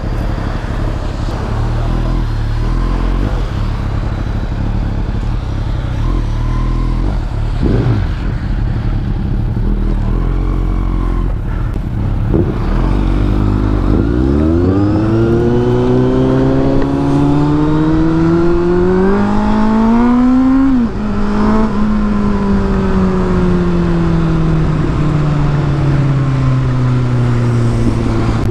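Motorcycle engine running at low revs with a rough rumble, then accelerating with a rising engine note for several seconds. The note drops sharply about twenty-one seconds in and then falls slowly as the bike rolls on, with tyre and wind hiss from the wet road underneath.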